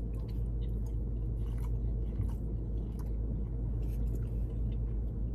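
Close-miked chewing of sushi, with faint wet mouth clicks scattered through, over a steady low hum inside a car.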